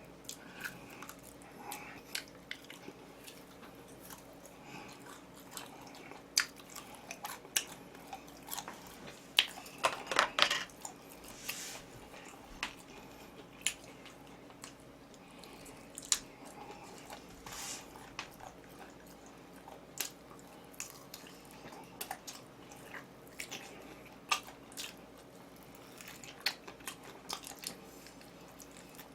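Close-miked eating sounds: a person chewing and biting food, with scattered short wet clicks and smacks and a brief denser run of them about ten seconds in.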